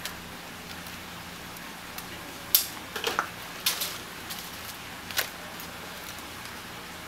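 A few sharp clicks and clacks of kitchen scissors and metal tongs handling grilled eel, the loudest about two and a half seconds in, over a steady low hum.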